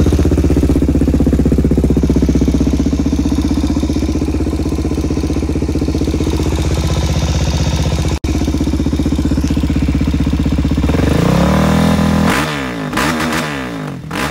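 Single-cylinder dirt bike engine running steadily, with a brief break about eight seconds in, then its pitch swinging quickly up and down near the end.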